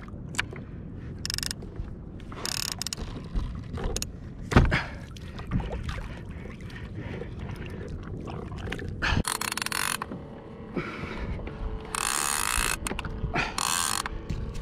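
Conventional fishing reel being cranked, its ratchet clicking as a fish is reeled in, over a low rumble, with several short bursts of hiss.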